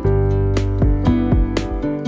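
Background music: plucked guitar-like notes over a steady bass line.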